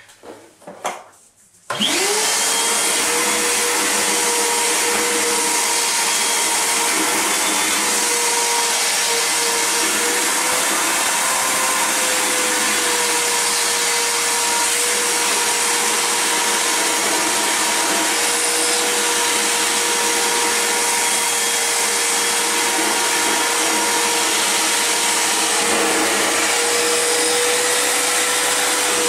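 Wet/dry shop vacuum switched on about two seconds in, then running steadily with a constant whine over its rushing air. Its sound shifts slightly near the end as the hose is worked down into the toilet bowl.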